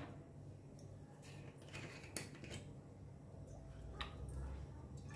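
Faint handling sounds of a bottle of lime juice being picked up and tipped over a steel mixing bowl: a few light clicks and knocks spread through, over a low steady hum.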